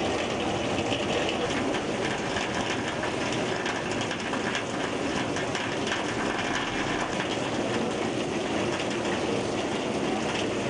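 Steady, unbroken rushing noise of heavy water, with no rhythm or pitch and an even level throughout.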